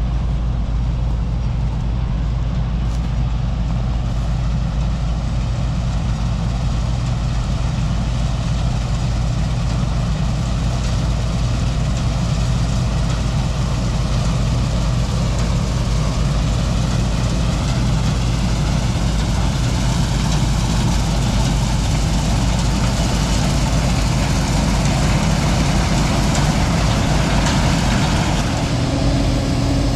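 Combine harvester running steadily under load in soybeans: a low engine hum with the broad rush of the threshing and cleaning machinery, growing slightly louder in the second half.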